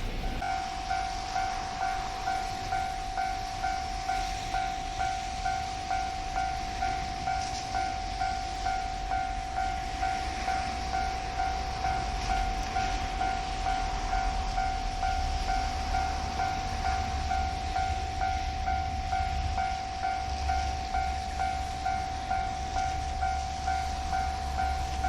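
Japanese railway level-crossing alarm ringing: an electronic bell tone repeating at an even pace, a little more than once a second. A low rumble comes in about two-thirds of the way through.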